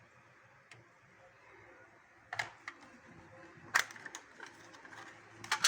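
A handful of sharp clicks and knocks at irregular intervals, the loudest about two thirds of the way in and again at the very end, over a faint steady hiss.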